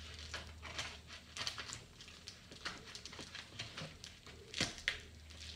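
Plastic-wrapped, taped parcel crinkling and rustling under hands, an irregular run of crackles and clicks. Near the end come two sharper snaps as scissors start cutting into the wrapping.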